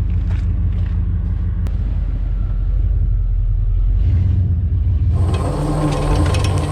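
Pickup truck engine running with a low rumble. About five seconds in, the truck's electric salt-sand spreader starts: a steady motor whine with rapid ticking and rattling as it begins throwing material.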